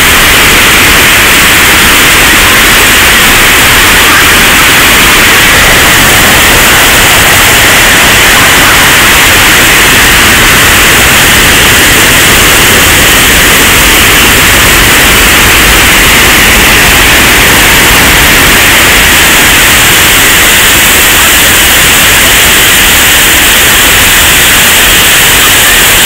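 Waterfall: a loud, steady rush of falling water that holds even and unbroken throughout.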